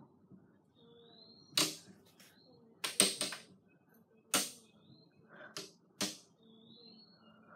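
Six sharp clacks at irregular intervals, the loudest about three seconds in.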